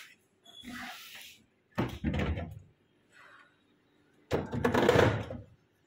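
Cupboard doors being opened and handled: a knock about two seconds in and a longer clatter just after four seconds.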